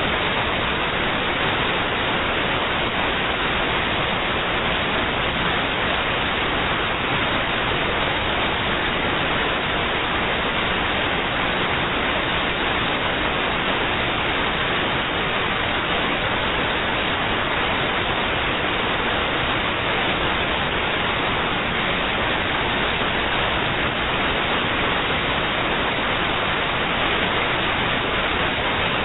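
Steady, unchanging static hiss with no distinct events; no explosions or other sounds stand out.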